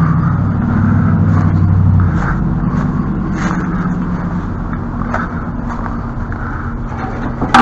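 An engine running steadily with a low hum, its pitch shifting slightly about two seconds in. A sharp knock right at the end.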